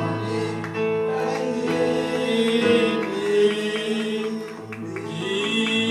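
Live music: singing into microphones over guitar accompaniment, with long held, wavering notes.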